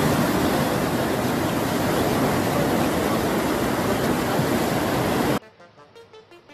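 Floodwater rushing in a torrent, a loud, steady roar of water that cuts off suddenly about five seconds in, leaving only a faint low sound.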